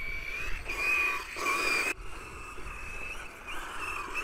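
Brushless motor of an XLF F11A 1/10 off-road RC car whining, its high pitch wavering with the throttle. It is louder and rougher for about a second near the start, breaks off sharply about two seconds in, then carries on more faintly.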